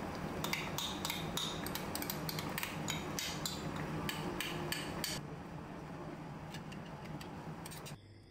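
A spoon clicking and scraping against a bowl in a quick run of strokes as chili seasoning paste is pushed off it into a pot of gamjatang, over a steady hiss from the simmering pot. The clicking stops about five seconds in.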